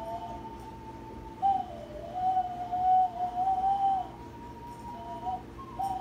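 A child blowing a small hand-held wind instrument, giving a breathy, whistle-like tone that wavers and slides in pitch. There is a short note at first, then a long sliding phrase from about a second and a half in, then brief notes near the end.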